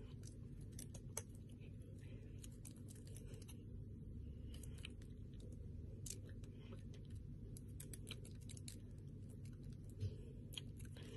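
Faint clicks, taps and rustles of hands and body moving while signing, over a steady low hum of room tone, with a sharper click about a second in and a soft thump near the end.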